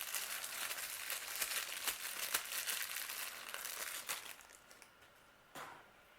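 Crinkling of a small bag being handled as a toy figure is pulled out of it, dense for about four seconds and then fading, with a single short click near the end.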